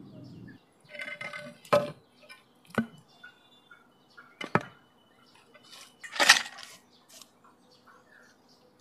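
A few sharp knocks and clinks with rustling between them, the loudest about six seconds in: cut snakehead fish being handled in a steel bowl.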